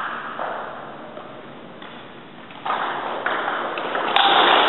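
Table tennis ball being served and rallied, clicking off the paddles and bouncing on the table, the hits echoing in a large hall and coming about twice a second from about halfway through.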